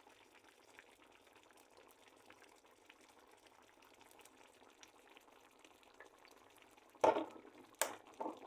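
Tomato and vegetable sauce simmering in a pot: a faint, steady crackle of small bubbles and pops. Near the end comes a louder scrape, then two sharp knocks.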